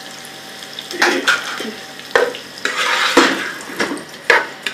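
Sliced onions frying in oil in a pot, stirred with a spoon that scrapes and knocks against the pot several times, starting about a second in.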